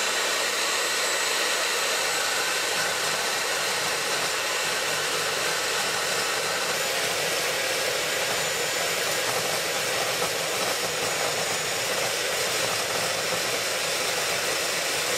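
Bosch GCD 12 JL dry-cut metal saw with a carbide-tipped blade running at full speed and cutting through a 50 mm round bar of mild steel: a loud, steady motor run with the grinding of the blade in the steel.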